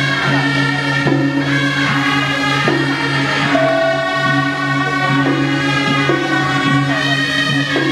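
Music with several held pitched tones over a constant low drone and a steady beat.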